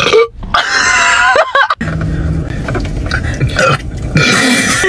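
A woman burping: several long, loud burps one after another, the first with a wavering pitch, separated by abrupt cuts.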